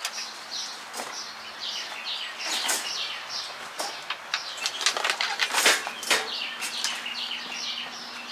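Irregular crackling, rustling scrapes of wood chips being dumped and spread across the ground of a chicken run, loudest in a couple of bursts around the middle, with small birds chirping steadily throughout.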